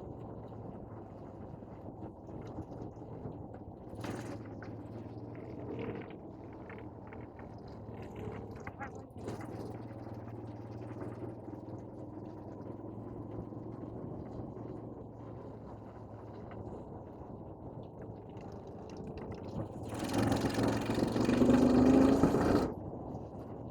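A motor vehicle's engine running steadily with a low hum. About twenty seconds in, a much louder rush comes with the engine note rising, then it cuts off sharply.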